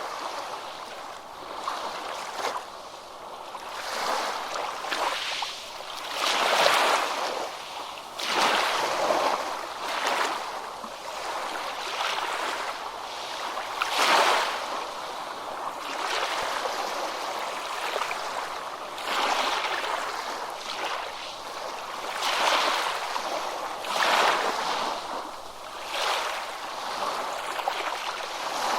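Ocean waves breaking on a beach: surf washes in and out, rising and falling every two to three seconds.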